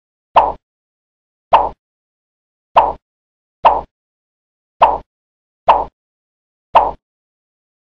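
Cartoon whiff sound effect: a short swishing whoosh, played seven times about a second apart, each one starting sharply and fading quickly, with silence between.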